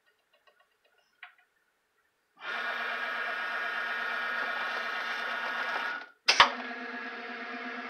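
ProLIGHT benchtop CNC mill's axis drives moving the machine for an automatic tool change. After a couple of near-quiet seconds with a faint click, there is a steady whine of several tones for about four seconds as the table travels toward the tool rack. Then comes a sharp clunk, and a second steady whine with a lower tone as the next move starts.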